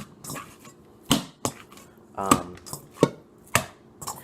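Hands kneading and slapping seasoned raw ground beef in a bowl: a handful of wet, irregular slaps and squelches.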